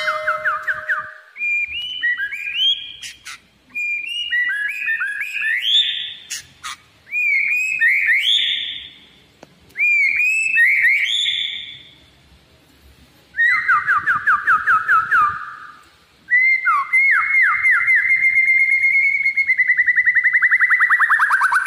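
White-rumped shama singing in bursts: fast trills of repeated notes and rising whistled phrases, with short pauses between, then a long fast run of notes near the end.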